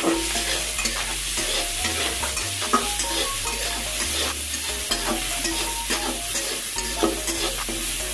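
Steel spatula stirring and scraping chopped tomatoes, peas and green chillies around a steel kadhai, with the hot oil sizzling steadily under it. Two sharper knocks of the spatula on the pan come about a third of the way in and near the end.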